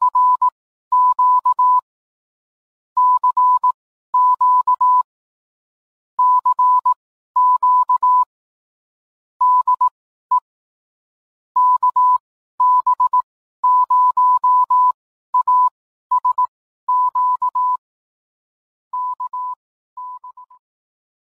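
Morse code: a single steady beep tone keyed on and off in short and long elements, sent in groups separated by pauses. It grows fainter near the end and stops.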